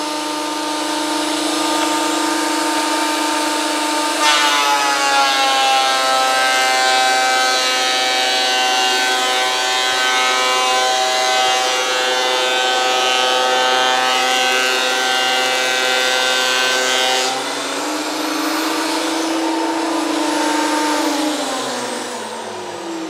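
Makita 2012NB portable thicknesser's 1650-watt motor and cutter block running with a high whine. About four seconds in a board feeds through: the note drops and the sound grows louder and rougher with the cutting for some thirteen seconds. It then frees up to the lighter whine and winds down falling in pitch near the end as it is switched off.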